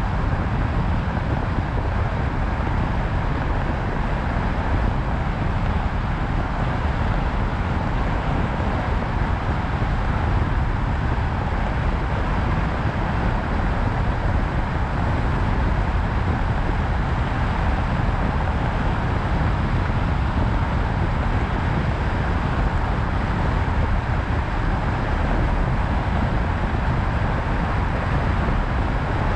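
Steady road noise of a car driving at an even speed: a low rumble of tyres and engine with a hiss of wind and road above it, unchanging throughout.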